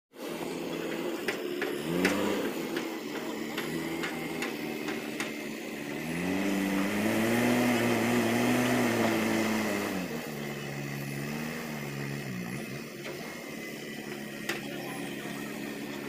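JCB backhoe loader's diesel engine running, revving up about six seconds in and holding high for several seconds before dropping back, with shorter revs near two seconds and again near twelve seconds. Occasional sharp knocks.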